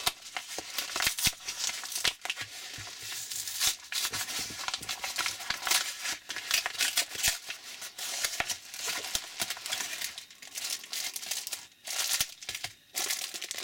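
Plastic packaging crinkling and rustling in the hands as a white mailing bag is opened and a small clear zip-lock bag is handled, a dense run of irregular crackles with short pauses near the end.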